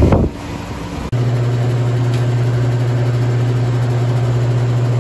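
Walk-in cooler refrigeration unit running, a steady low machine hum, with the system fully charged. A brief rustle comes at the start, and about a second in the sound cuts to a louder, more even low hum.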